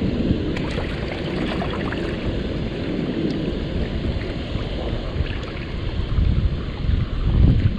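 Wind buffeting the microphone: a heavy, uneven low rumble, with a stronger gust near the end.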